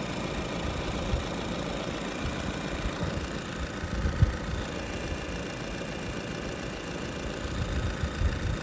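Car engine idling steadily under the open bonnet, with a brief knock about four seconds in.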